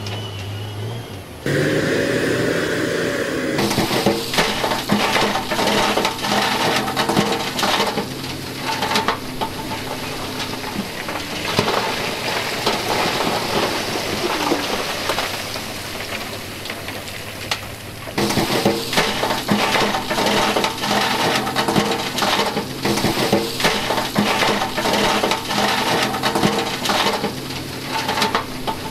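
Dump truck tipping a load of broken stone: rock clattering and sliding down the bed and the bank in a dense run of knocks and rushing, over a steady engine drone. The sound changes abruptly a few times, near the start and again about halfway.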